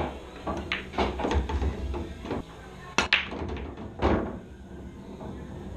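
Pool balls clacking: the cue tip striking the cue ball and balls knocking together. About three seconds in comes a sharp crack as a rack is broken, followed by balls knocking around the table.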